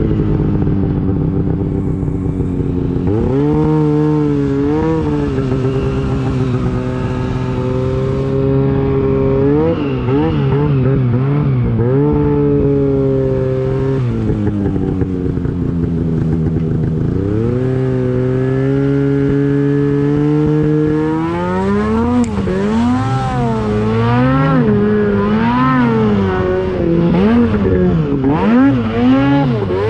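Two-stroke Arctic Cat snowmobile engine running close up as the sled rides down a trail, its revs rising and falling again and again with the throttle. In the last third the pitch swings up and down in quick, short throttle blips.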